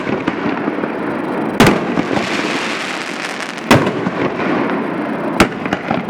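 60-gram canister shell fireworks going off: three sharp booms about two seconds apart and a fainter one near the end, over a continuous noisy hiss between them.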